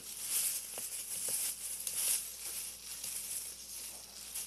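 Sticky homemade slime being squeezed and kneaded in gloved hands, making irregular crackly squelching noises. The slime is still tacky and sticking to the gloves, not fully activated.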